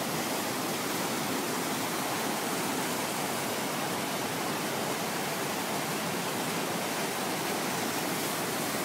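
Steady rush of a fast, rocky mountain river running in white water.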